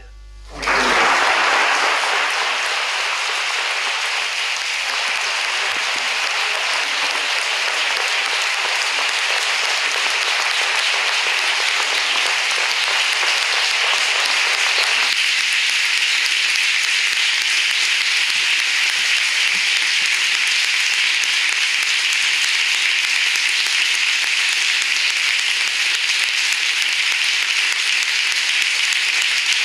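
Sustained applause from a room full of people clapping. It starts about a second in, right after a speech ends, and holds steady and loud.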